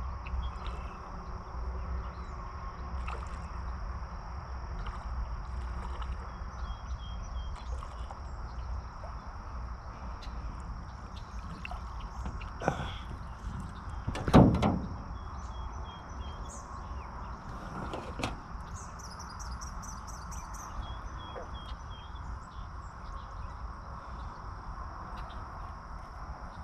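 Lakeside outdoor ambience: a steady high insect drone over a low rumble, with short repeated chirps. Three sharp knocks come near the middle, the loudest a thump about halfway through.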